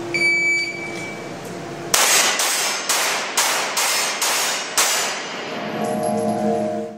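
Shot timer beeps once as the start signal. About a second later a pistol fires a rapid string of about seven shots roughly half a second apart at steel plates. Each shot echoes in the indoor range. Music comes in near the end.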